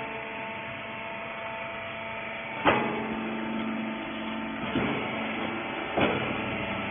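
Hydraulic horizontal rag baler running with a steady machine hum, broken by three sharp knocks, the first nearly three seconds in and two more near the end.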